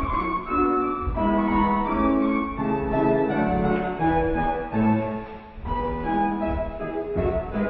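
Piano playing classical ballet-class accompaniment, a melody over chords with a short break in the phrase about five and a half seconds in.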